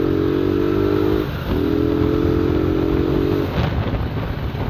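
Motorcycle engine pulling steadily as the bike speeds up, heard from the rider's seat; the engine note drops out briefly about a second in, then comes back. About three and a half seconds in it gives way to a rushing wind noise on the microphone.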